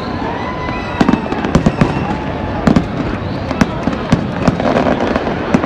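Fireworks display bursting overhead: a string of sharp, irregular bangs, several a second at times, over a continuous crackling noise.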